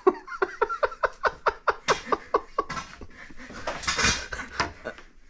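A person laughing hard: a rapid run of short, high-pitched pulses, about five a second, each dropping in pitch, dying away near three seconds in, then a breathy gasp about four seconds in.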